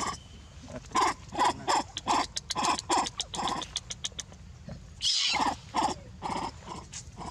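Macaques calling: quick runs of short, sharp calls, about three or four a second, in two bouts with a pause of about a second and a half between them.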